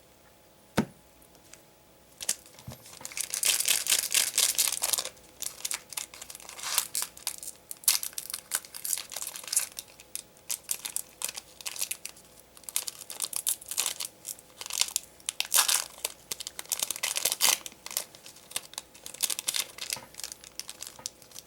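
Foil wrapper of a Digimon card game booster pack being crinkled and torn open, starting about two seconds in with a dense stretch of tearing, then intermittent crinkling and rustling. A single sharp click comes just before it.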